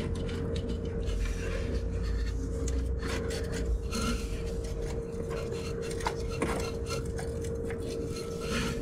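Metal parts rubbing, scraping and clinking irregularly as a new engine mount and its metal heat shield are worked into position by gloved hands.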